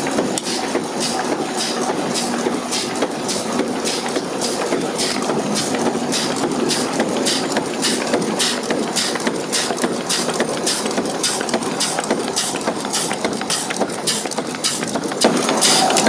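A 40-ton stamping press running a progressive die, its strip feed and stroke knocking in a steady rhythm of about two hits a second over a continuous machine hum.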